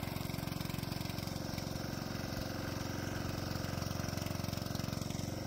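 Small 196cc air-cooled diesel engine running steadily under load with a fast, even beat, turning the alternator while the diesel-electric golf cart pulls a pickup truck.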